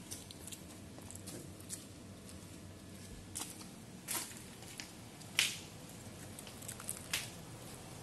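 A few irregular light scuffs and crunches, as of footsteps on a gravel and stone-slab path, over a steady low background hiss; the loudest comes a little after the middle.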